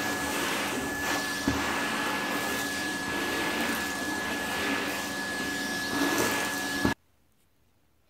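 Numatic blue canister wet-and-dry vacuum cleaner running, sucking debris off a carpet: a steady rushing noise with a thin high whistle held on top. It cuts off suddenly about seven seconds in, leaving near silence.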